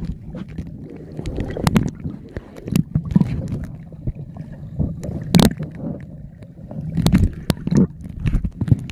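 Muffled underwater sound picked up by a camera held below the surface while snorkeling: low rumbling water movement that swells and fades, with scattered sharp clicks and knocks.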